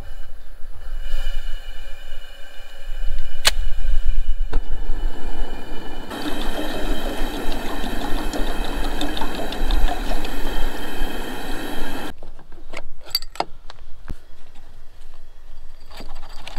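Coleman two-burner camp stove's burner hissing as it is lit and left running, with wind rumbling on the microphone. There is a single sharp click about three and a half seconds in, and the hiss grows fuller for about six seconds in the middle before cutting off suddenly.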